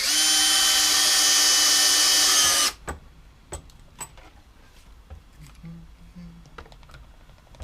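Power drill driving a pocket screw into wood joint: the motor whines steadily for nearly three seconds, then stops abruptly. A few light clicks and taps follow.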